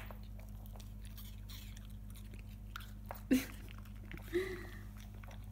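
Golden retriever puppy chewing and crunching pieces of apple: scattered small clicks and crunches, the loudest crunch about three seconds in, followed by a short pitched sound.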